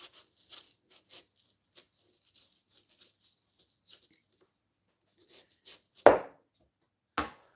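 Knife cutting leftover rind off a watermelon in a run of light, short strokes over the first few seconds. Near the end come two sharp knocks about a second apart, the first the louder.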